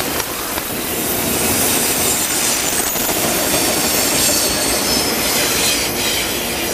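CN freight train's autorack cars rolling past close by: steel wheels on the rails give a loud, steady rushing clatter with a faint high-pitched wheel squeal.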